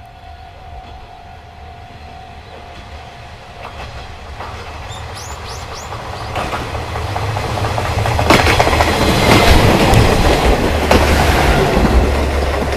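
Aizu Railway two-car diesel railcar train (AT-400 and AT-351) approaching and passing over a level crossing. It grows steadily louder, and its wheels clack over the rail joints as it goes by. A steady level-crossing alarm tone stops about two seconds in.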